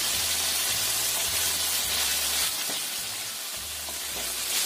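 Cornstarch-coated chicken pieces shallow-frying in a little oil in a wok over a low-to-medium flame: a steady sizzle that eases for a moment past the halfway point and comes back near the end.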